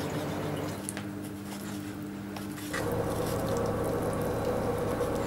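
Knife cutting meat and skin away from a pig's head, with soft wet squishing, over a steady low hum. The hum changes and gets a little louder about two and a half seconds in.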